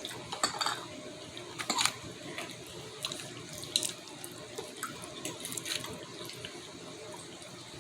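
Water running steadily, as from a tap, with a few light clicks and clinks.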